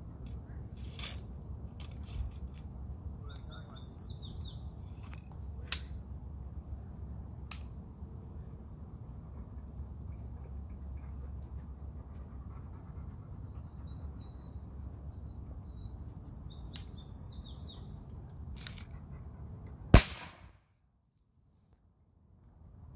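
Loading clicks and taps of a black-powder Civil War rifle-musket, then a single loud shot about twenty seconds in, after which the sound drops out for a couple of seconds. Birds chirp twice during the loading.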